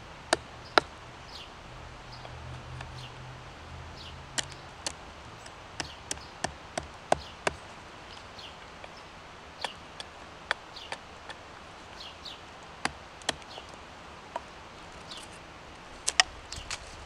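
Hatchet striking and shaving a piece of wood on a wooden chopping block: irregular sharp knocks, sometimes two or three a second, with gaps between.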